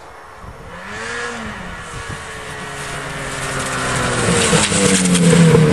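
Snowmobile engine approaching across open snow, growing steadily louder, with a brief rev up and back down about a second in.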